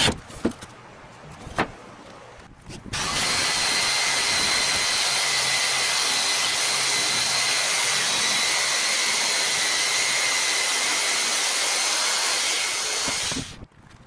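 A few light clicks, then an electric drill fitted with a 3/4-inch Forstner bit starts about three seconds in and runs steadily for about ten seconds with a high whine, boring holes, and stops near the end.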